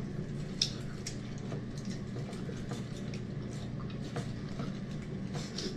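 Wet chewing and lip-smacking of people eating by hand, heard as a scatter of short sharp clicks over a steady low hum.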